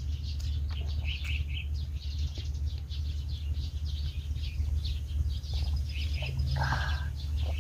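Small birds chirping: many short, high chirps scattered throughout, with a quick trill a little past halfway, over a steady low hum.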